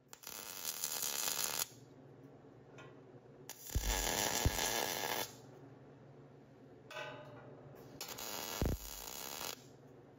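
MIG welder laying three short tack welds on the inner plates of a fabricated 9-inch axle housing. Each tack is a crackling, sizzling hiss lasting one and a half to two and a half seconds, with a steady low hum in the gaps between them.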